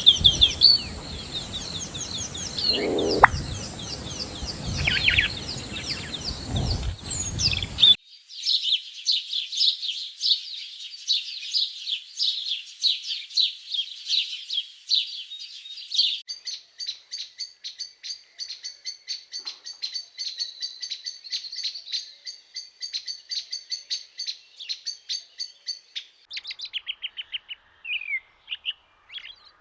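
Small birds chirping and singing in a run of short, high notes and quick trills. The sound changes abruptly three times, about a quarter, a half and near the end of the way through, as one recording is cut to the next.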